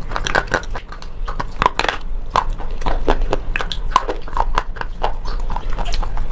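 Slate pencil pieces being bitten and chewed close to the mouth: a quick, irregular run of crisp crunches, several a second.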